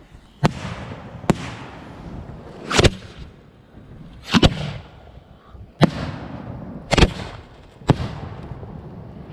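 A series of loud firework bangs, about seven in nine seconds at uneven spacing, each followed by a long rumbling echo.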